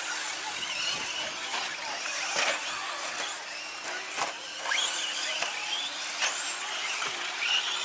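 Electric RC short course trucks racing, their brushless motors whining in several high pitches that rise and fall as they accelerate and brake, with scattered sharp clicks and knocks from the trucks on the track.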